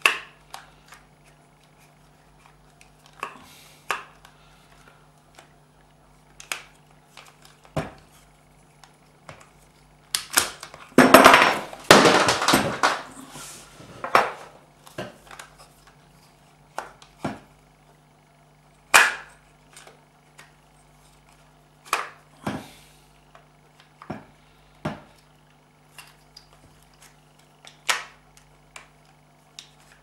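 Scattered clicks and knocks of small metal and plastic parts of a car's automatic gear selector mechanism being handled and fitted together, with a dense stretch of clattering and rattling about ten to fourteen seconds in, the loudest part. A faint steady hum runs underneath.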